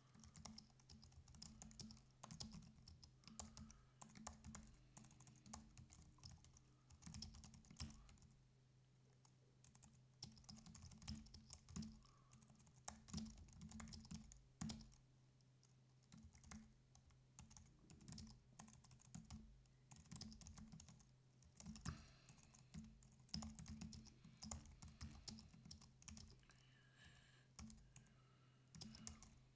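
Typing on a computer keyboard: runs of rapid key clicks with a few short pauses between them, over a steady low hum.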